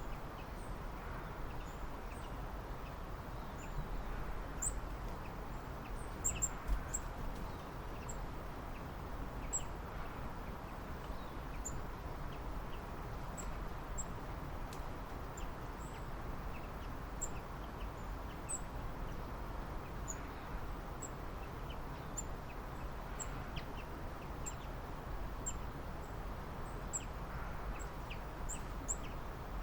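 Small birds chirping: short, very high-pitched chirps at irregular intervals, over a steady background hiss of outdoor ambience.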